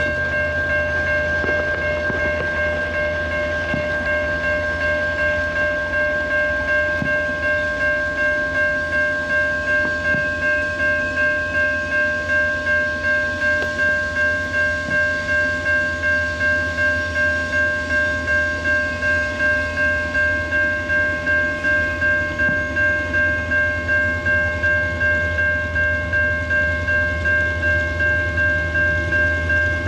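Electronic railroad grade-crossing bell ringing steadily at about two strokes a second, over the low rumble of an approaching diesel freight train.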